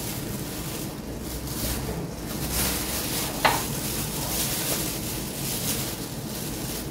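Plastic bag of semolina rustling as a plastic measuring cup is scooped about inside it, in several swells, with one short sharp click about three and a half seconds in.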